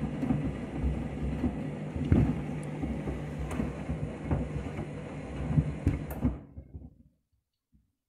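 Front-loading washing machine mid-wash: a steady motor hum and sloshing soapy water, with shoes knocking irregularly in the turning drum. The sound fades out about six and a half seconds in.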